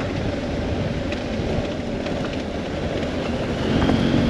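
BMW F800GS parallel-twin engine running steadily on the move, with a light clattering rattle.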